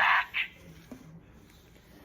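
A voice ending a short phrase in the first half-second, then quiet room tone with no clear sound.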